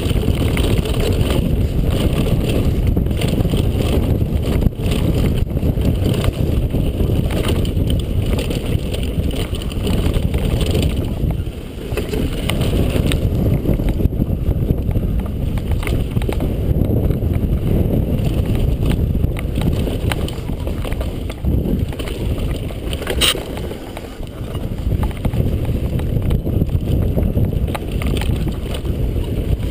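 Wind rumbling on a helmet-mounted camera's microphone as a downhill mountain bike rides fast over a dry dirt singletrack, with the tyres on dirt and gravel and the bike rattling over bumps. One sharp knock about two-thirds of the way through.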